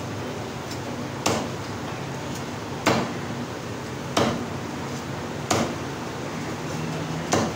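Meat cleaver chopping through a rack of mutton ribs into a round wooden chopping block: five sharp chops, about one every second and a half.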